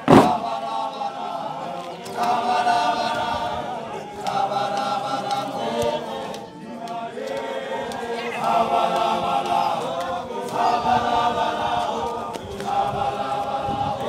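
A large group of men singing together in short chanted phrases with brief breaks, opening with one heavy stamp of many feet on a dirt road.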